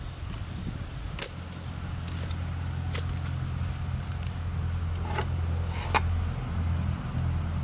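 Sharp clicks and light knocks as whole grilled chickens are handled and set down on a woven wicker basket, about five in all, over a steady low hum.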